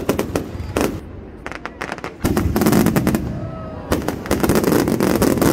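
Fireworks display: a rapid string of bangs and crackles that thins out about a second in, then a dense, loud crackling barrage from about two seconds in.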